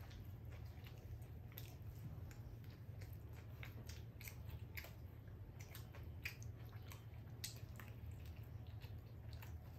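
Two people chewing and biting pizza, with faint, scattered wet mouth clicks and smacks over a steady low hum.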